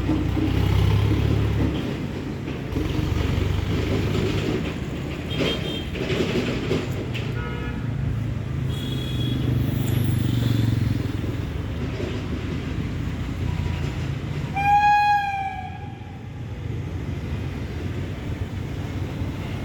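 Train rumbling steadily, with a horn sounding once for about a second near three-quarters of the way through and a few fainter, shorter horn tones earlier.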